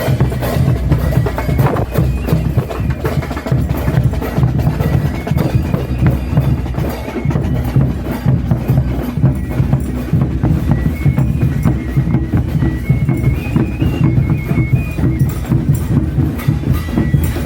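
Bass drums and cymbals of a religious dance troupe playing a steady, fast rhythm, with a thin high melody line moving in steps above the drumming.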